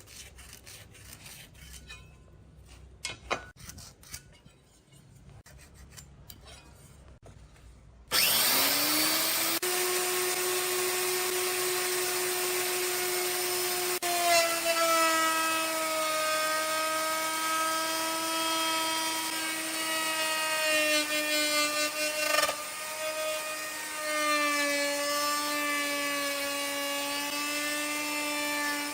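A few quiet clicks and knocks, then about eight seconds in an electric power tool starts up with a rising whine. It runs on steadily with a high whine, its pitch dipping slightly a few times as it works the wood.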